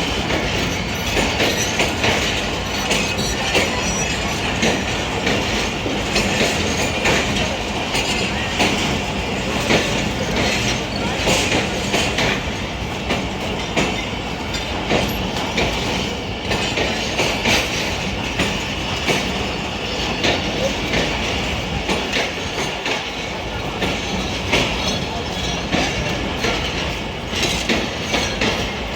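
Hazara Express passenger train rolling into the station, its wheels clacking over rail joints in a steady rapid patter, with some wheel squeal.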